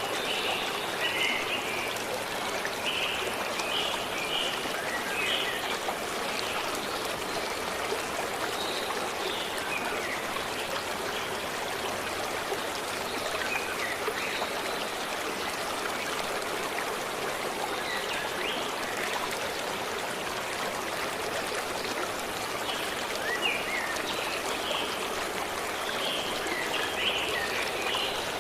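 A stream running steadily, with birds chirping in short high calls, busiest near the start and again near the end.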